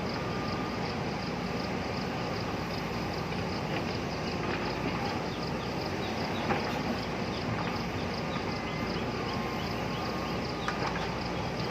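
JCB backhoe loader's diesel engine running steadily, with a few sharp knocks scattered through.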